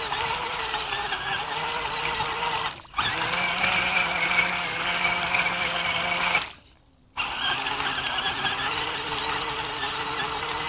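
RC bogger truck's motor and drivetrain running with a steady whine as it churns through muddy water. The sound drops out abruptly twice, briefly about three seconds in and for about half a second near the middle.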